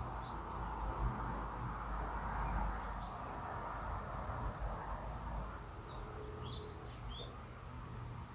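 Daurian redstart singing short phrases of quick, high chirps: one near the start, another about two and a half seconds in, and a fuller cluster of notes about six to seven seconds in. A steady low background rumble runs underneath.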